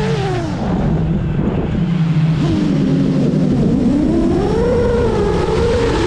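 FPV quadcopter's brushless motors and propellers whining. The pitch drops sharply at the start as the throttle is cut for a dive, stays low, then climbs steadily again from about halfway as the throttle comes back up, over low wind rush.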